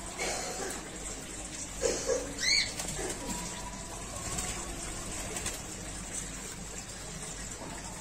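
A white-breasted waterhen bathing in a shallow water tub: faint splashing and wing flapping. A short high bird chirp comes about two and a half seconds in.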